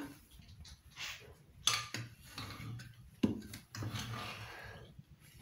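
A metal spoon scraping rice out of an aluminium pressure cooker and knocking against it and steel plates, with several sharp clinks, the loudest about three seconds in.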